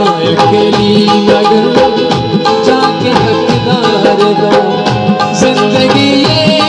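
Instrumental interlude of South Asian folk music: tabla drumming in a quick, dense pattern over steady held harmonium notes, amplified through a sound system.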